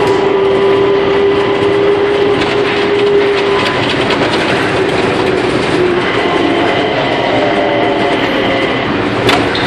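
Changi Airport's automated terminal train running along its concrete guideway, heard from inside the front car: a steady running noise with an electric whine whose pitch shifts about six seconds in. A sharp click sounds near the end.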